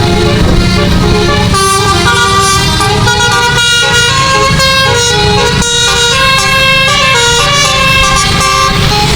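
A bus's 12-note Basuri musical air horn (telolet) playing a melody, its notes changing every fraction of a second with a couple of brief breaks, over a steady low rumble.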